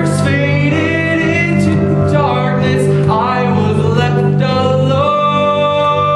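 Live stage-musical number: a male lead voice sings over instrumental accompaniment, settling into a long held note about five seconds in.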